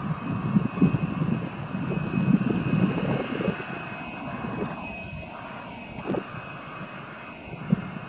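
ATR twin-turboprop airliner climbing away after takeoff: a fluttering rumble from its engines and propellers, with a thin steady high whine over it. It is loudest for the first few seconds, then fades as the plane draws away.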